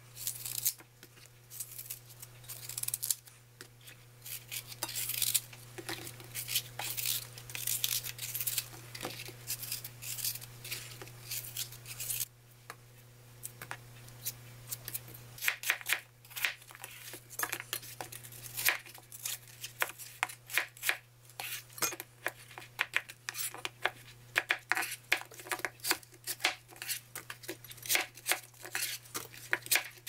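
Kitchen knife cutting apples and pears: slicing the fruit in the hand, then chopping it into chunks on a plastic cutting board, with quick, irregular taps of the blade on the board that come thicker from about halfway. A steady low hum runs underneath.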